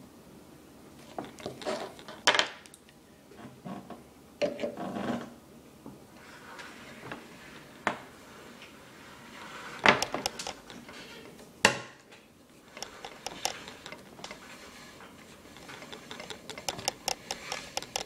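Insulated wire being handled and pulled through a homemade aluminium wire-stripping machine: scattered metallic clicks and knocks with scraping and rustling. The sharpest knocks come about two, ten and twelve seconds in.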